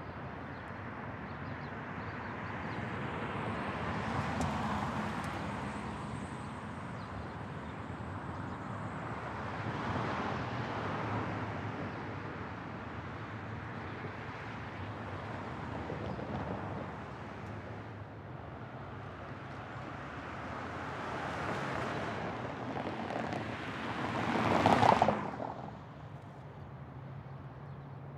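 Night street traffic: about five cars pass one after another, each a rising and falling whoosh, with the last and loudest passing close near the end and cutting off abruptly. A low steady hum of traffic runs underneath.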